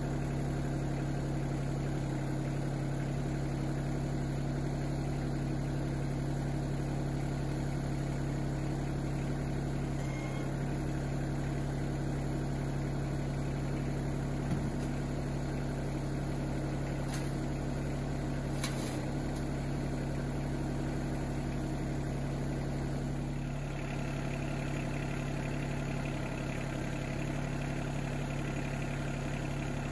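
Yanmar SA324 compact tractor's three-cylinder diesel engine idling steadily while the loader is worked on the joystick, with two faint clicks about halfway through.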